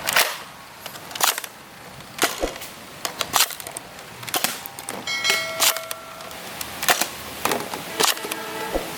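A string of sharp clicks and knocks, irregular and roughly one or two a second, with a short ringing chime about five seconds in.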